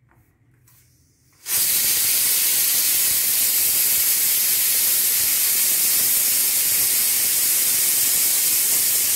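A loud, steady hiss that comes in about a second and a half in and holds without change.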